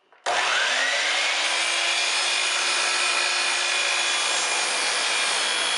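A DeWalt sliding compound miter saw is switched on about a third of a second in. Its motor winds up to a steady high whine, and the blade is brought down through a length of oak.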